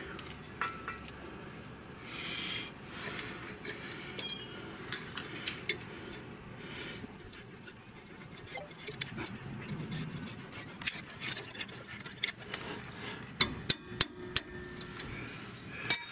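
Small metallic clicks and clinks of a brake cable being worked into its bracket clip on the rear leaf spring, with four sharp clicks near the end and a bright, ringing metal clink at the very end.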